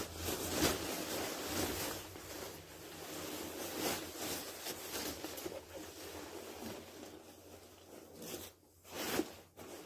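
Handling noise: steady rustling and scraping as the Halloween animatronic's body is lifted and fitted down onto its support spike.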